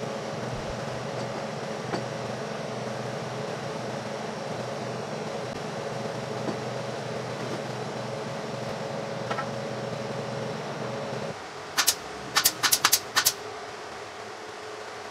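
A steady machine hum that stops about eleven seconds in, followed by about six sharp shots from a pneumatic nail gun fired in quick succession, driving nails into a wooden frame.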